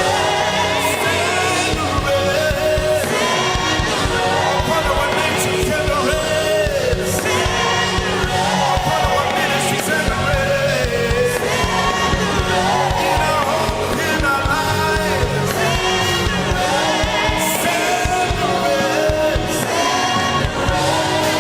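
Gospel worship song: voices singing sustained melody lines over a full band accompaniment.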